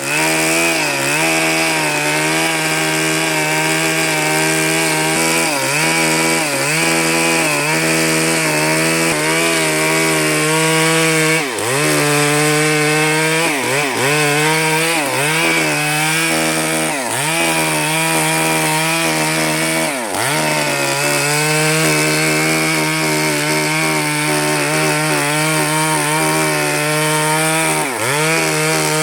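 Two-stroke chainsaw running at high revs while cutting wood, its engine note dipping briefly and recovering a dozen or so times.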